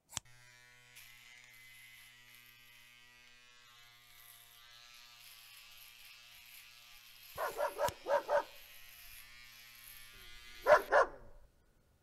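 Electric hair clippers buzzing steadily, then cutting off near the end. A dog barks in a quick run of about four barks some seven seconds in, and twice more shortly before the buzzing stops.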